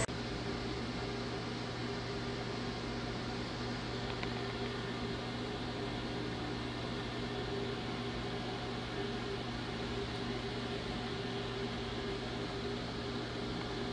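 Steady machine hum of a SYIL X7 CNC mill standing idle with its fans and motors running, a low buzz with a few steady tones under it.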